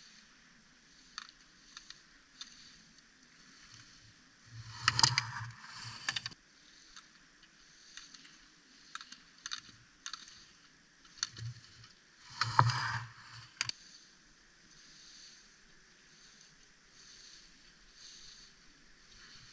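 Slalom skis carving and scraping on hard-packed snow as a racer passes close by, twice: about five seconds in and again about twelve and a half seconds in. Scattered sharp clacks come in between.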